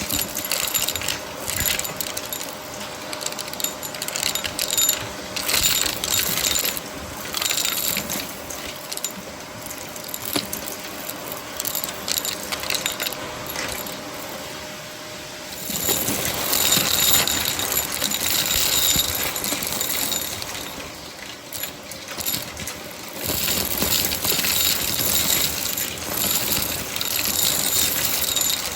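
Shark vacuum cleaner running and sucking up crunchy debris, which crackles and rattles through it. About halfway through, the steady motor hum gives way to more hiss and crackle.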